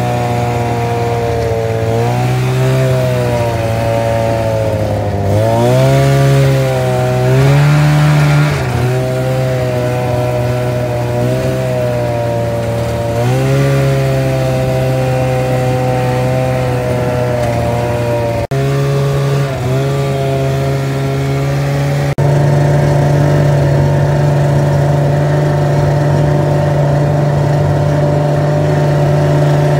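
Snowmobile engine running, its pitch rising and falling as the throttle is opened and eased, then holding steady in the last third. The sound jumps abruptly twice past the middle.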